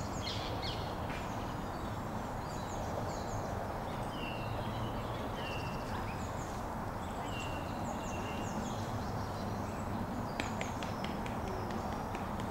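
Wild birds chirping and whistling over a steady outdoor background hiss, with a quick flurry of chirps about ten seconds in.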